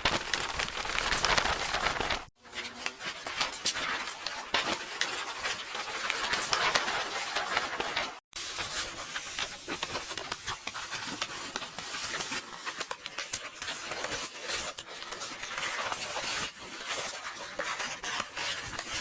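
Book pages rustling and tearing: a dense crackling of paper, in three stretches split by two short cuts, about two seconds and eight seconds in. It is an AI-generated sound effect.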